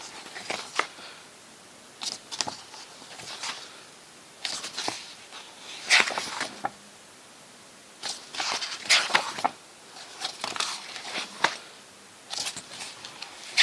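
Pages of a heavy photo book being turned and handled: short rustles and slides of paper every second or two.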